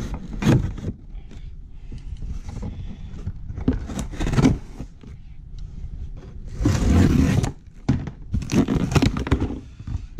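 Cardboard shipping box being handled and its flap opened: irregular scraping and rustling of cardboard, loudest for about a second around seven seconds in.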